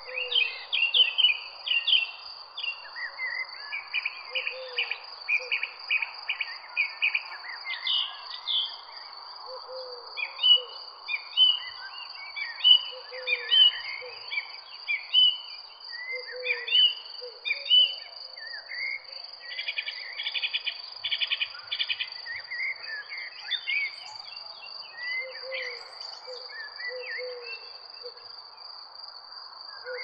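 Several birds chirping and singing in overlapping phrases, some in rapid trills, over a continuous high insect trill. Short low hooting calls recur every few seconds, with a steady soft hiss underneath.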